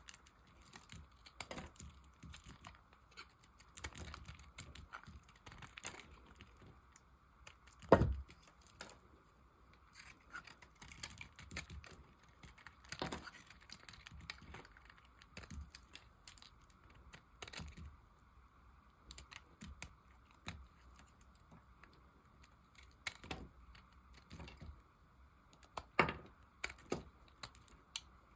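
Dry bar soap being cut with a knife: a steady run of crisp crackles and clicks as the blade goes through the hard soap and small pieces break off, with a louder knock about eight seconds in and another near the end.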